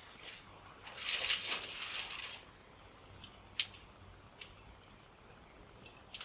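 A scratchy crackling burst lasting about a second, about a second in, as the twig stove's fire is lit, then dry twigs snapped by hand for kindling: single sharp snaps about 3.5 and 4.5 seconds in and a quick double snap near the end.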